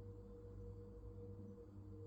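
Hisense washing machine running its wool cycle: a low, steady hum with a faint steady tone above it, the drum not tumbling.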